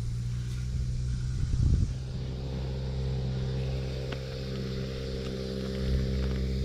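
An engine running steadily, a low hum with even overtones that grows a little stronger about two seconds in, over a low rumble and a few faint ticks.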